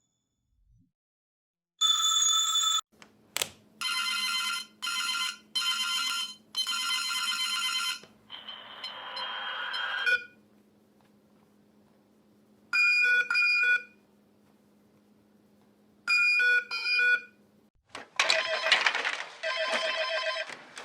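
AI-generated sound effects from Eleven Labs playing back as a series of short bell-like rings, each about a second long, in groups with pauses between them. A buzzier, noisier tone comes about eight seconds in, and the rings become denser and busier near the end.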